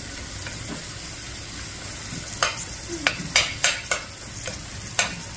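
Curried egg bag sizzling in a pot while a metal spoon stirs it. The spoon scrapes and knocks against the pot about six times in the second half.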